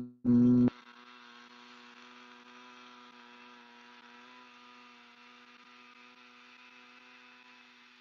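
A man's steady humming on a long, slow exhale, Bhramari (humming-bee) breath, held at one low pitch. It drops sharply in level under a second in, then carries on softer and fades slowly.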